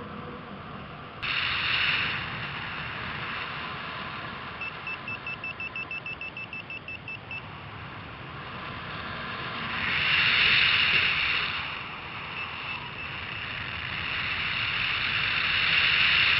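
Wind rushing over a paragliding action camera's microphone in flight, stepping up about a second in and swelling twice later. In the middle a paragliding variometer beeps rapidly, about five short beeps a second at one pitch: its climb tone, the sign of rising air.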